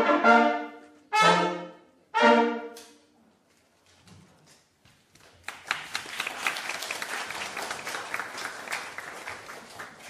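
A brass trio of two trumpets and a French horn finishes a piece: a held chord dying away, then two short, loud closing chords about a second apart. After a pause of about two seconds the audience breaks into applause.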